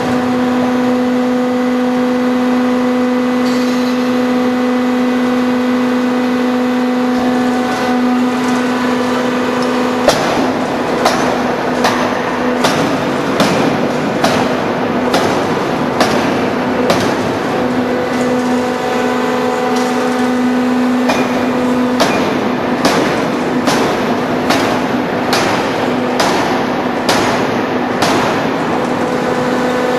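Hydraulic free-die forging hammer at work: its hydraulic power unit hums steadily, and about a third of the way in the hammer starts striking, with repeated blows of about one to two a second until the end.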